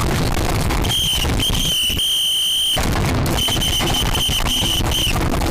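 Alarm sounding: a shrill, steady tone that comes in three bursts of roughly half a second to a second and a half, broken by short gaps, over loud harsh crackling noise.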